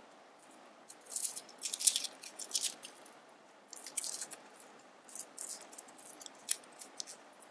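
Dry papery skin of a small garlic clove crackling and crinkling as fingers peel it, in irregular bursts of dry crackles with short pauses between.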